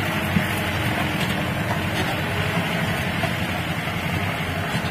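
Off-road jeep's engine running steadily as it drives along a rough dirt trail, with an even rumble of the ride and no change in pace.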